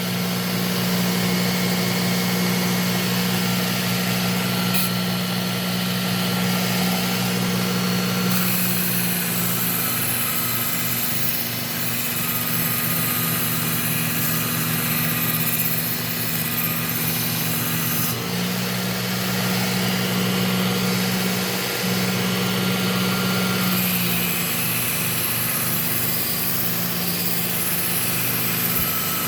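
Work Sharp Ken Onion belt sharpener running with a fine Trizact A30 belt as a kitchen knife is sharpened on it: a steady motor hum with belt hiss that brightens and dims a few times as the blade's passes change.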